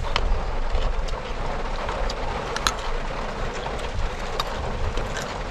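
Steady rain falling: an even hiss with scattered sharp ticks.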